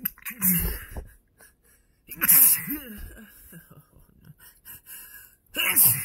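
A man's allergic sneezes, set off by an allergy to his dog: several hard sneezes in a row, the loudest about two seconds in and another near the end.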